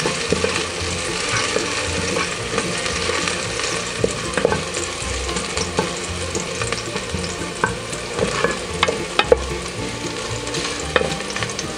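Minced garlic sizzling in hot oil in a pressure cooker pot as it is sautéed toward golden brown, stirred with a wooden spatula that scrapes and clicks against the pot now and then.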